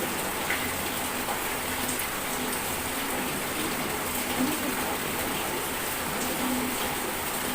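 Steady rain falling, an even hiss of drops on surfaces that keeps on without a break.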